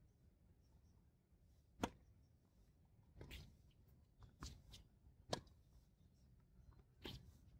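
Tennis ball struck by rackets in a rally on a hard court: two sharp, close hits about three and a half seconds apart, with fainter hits and bounces from farther off in between and near the end.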